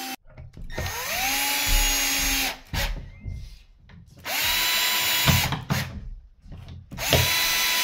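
Milwaukee M12 cordless drill driving screws through a cabinet hanging bracket into plugs in a lightweight block wall. It runs three times, each run a whine that rises quickly and then holds a steady pitch for a second or two.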